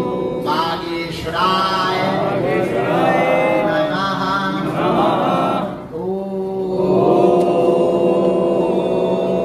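Male voices chanting a Hindu devotional mantra over a steady sustained drone. The chant wavers in pitch and breaks off briefly about six seconds in before the voices come back in on held notes.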